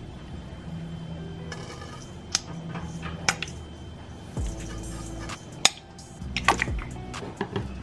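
Water splashing into and dripping in an empty stainless steel mixing bowl, with several sharp pings off the metal; soft background music runs underneath.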